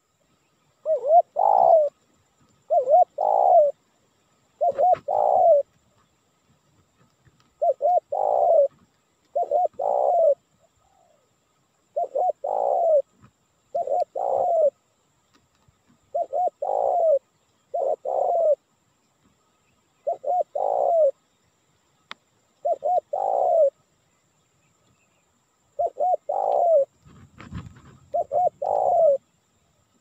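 Spotted dove (tekukur) cooing. It repeats a short phrase of a few rolling coo notes about every two seconds, around a dozen times.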